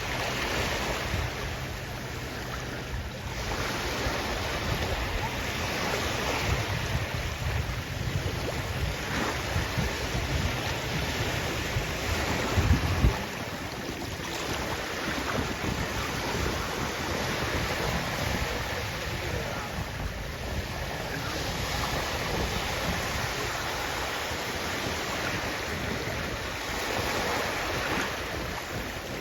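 Sea waves washing in on the shore, rising and falling in surges every few seconds. Wind rumbles on the microphone until about halfway through, then stops suddenly.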